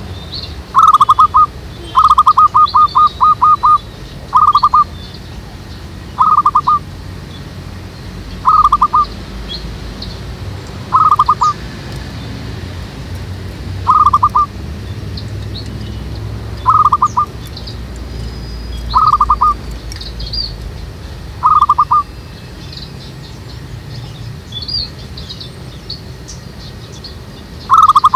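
Zebra dove calling: loud bursts of rapid staccato cooing notes, a longer run about two seconds in, then short bursts every two to three seconds. Fainter high chirps from small birds come in between.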